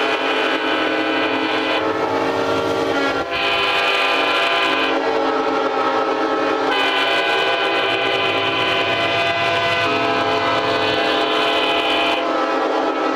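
Several train horns blasting at once, their chords overlapping into one continuous, loud wall of sound, with single horns dropping out and cutting back in every couple of seconds.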